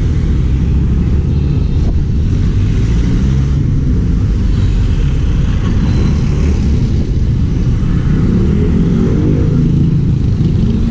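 A motor vehicle's engine running steadily under a continuous low road rumble, heard from on board.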